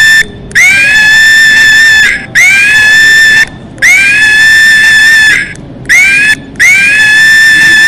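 Monkey screaming: a run of about five long, loud, high calls, each rising at the start and then held level for about a second, with short breaks between.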